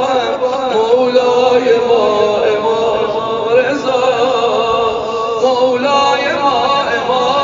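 A man chanting a devotional supplication in a long, wavering melody that glides up and down, other voices behind him.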